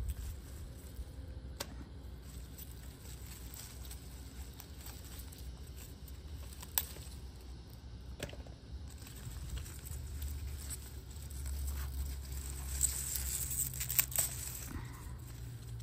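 Pepper plant leaves rustling as a hand moves through them, picking the peppers, with about four sharp clicks and a steady low rumble on the microphone.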